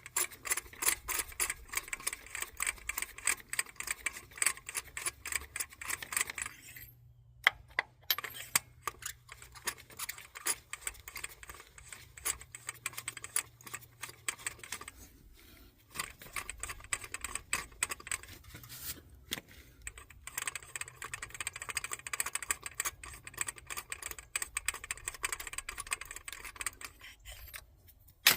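Socket ratchet clicking in fast runs of strokes, with a few short pauses between runs, as a spark plug is ratcheted out of the cylinder head.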